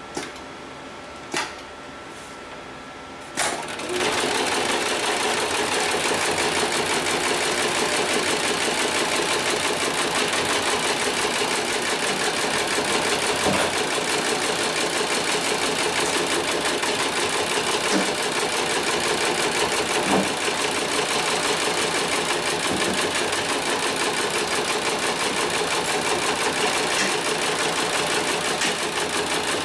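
A few sharp clicks, then, about three and a half seconds in, a HIGHTEX 7273CNC/X heavy-duty programmable pattern sewing machine starts. It runs steadily at a fast stitch rate, sewing thick polyester ratchet lashing straps.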